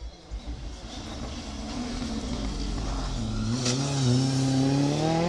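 Ford Fiesta rally car approaching a hairpin, its engine growing steadily louder, with one sharp crack about three and a half seconds in. Near the end the engine note rises as the car accelerates out of the bend.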